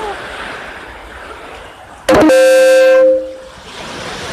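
A single loud horn blast, steady in pitch, lasting about a second, about halfway through, over a steady background hiss.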